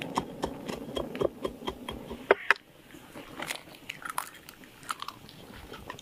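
Peanuts being crushed with a pestle in a small mortar: a run of quick crunching strikes for about two seconds, then two sharp knocks, after which the sound drops to quieter, scattered light clicks.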